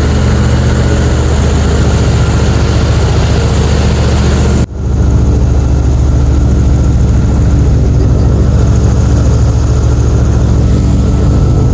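Airboat engine and propeller running loud and steady under way, with a brief break about five seconds in before it picks up again.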